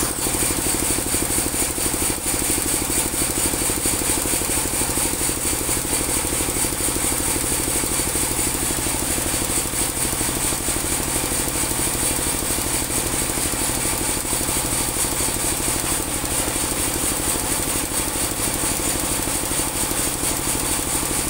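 Band sawmill running steadily, its engine humming under a steady high whine.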